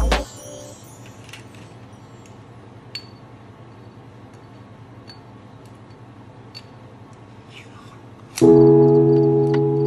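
Background music breaks off, leaving a quiet stretch with a few faint clicks; about eight seconds in, a loud sustained musical chord comes in.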